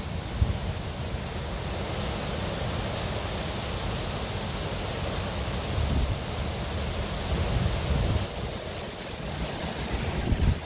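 Wind buffeting the microphone: a gusting low rumble under a steady hiss, with one small knock about half a second in.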